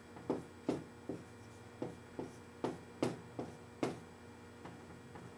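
Dry-erase marker writing on a whiteboard: about ten short, separate strokes. A faint steady electrical hum runs underneath.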